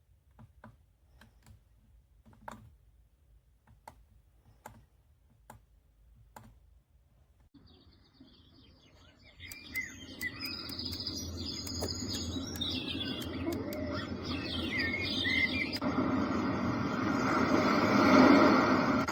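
A run of light, separate clicks, then the moon lamp alarm clock's sound machine plays a nature-sound track: birdsong chirps fade in. About sixteen seconds in, the birdsong changes abruptly to a louder, steady noise.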